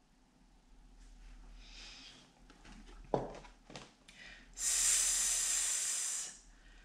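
A woman's voice holding a long hissing 'sss', the stretched phonics sound for the letter s, for nearly two seconds in the second half. Before it comes a quiet pause broken by a brief click.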